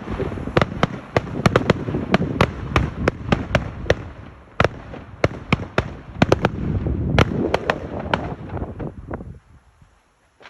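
Fireworks going off: a rapid run of sharp cracks and bangs over a rolling low rumble, thinning briefly in the middle and dying away near the end.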